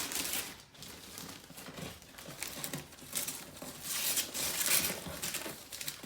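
Paper being torn and crumpled off a large gift box in irregular rustling bursts, loudest about four seconds in.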